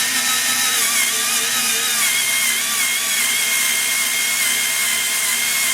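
Skil 4-volt cordless electric screwdriver running steadily with a high whine, slowly boring a quarter-inch drill bit into wood, a job at the edge of what its small motor can manage.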